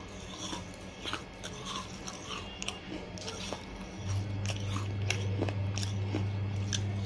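Pieces of a baked terracotta clay pot being bitten and chewed, with many small sharp crunches and cracks between the teeth. A steady low hum comes in about four seconds in.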